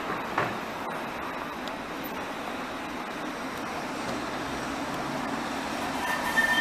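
Alstom Citadis tram approaching on a curve: a steady rolling rumble that grows gradually louder, with a steady high tone coming in near the end.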